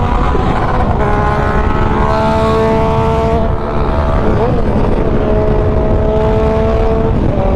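Motorcycle engine held at high revs while riding, its pitch climbing slowly, then breaking and briefly wavering about halfway through before running steady again, over heavy wind rush on the microphone.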